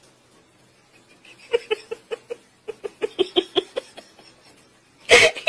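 Small dog, a Pomeranian, yapping in two quick runs of short high yips, about five or six a second. A short loud noise comes near the end.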